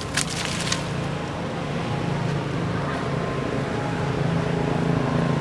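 A steady low engine hum, slowly growing louder, with two sharp clicks within the first second.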